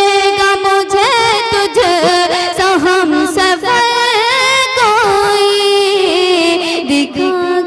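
A woman singing a ghazal in the tarannum style, holding long notes and drawing them out with wavering ornaments, with no clear words.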